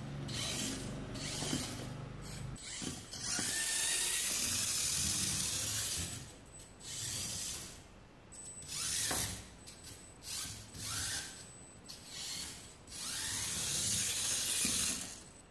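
Sniclo Q25 Jeep 1:64 micro RC car's tiny electric motor and gearbox whirring in uneven bursts as the throttle is applied and released, the pitch rising and falling with speed. The longest runs come about three to six seconds in and again near the end.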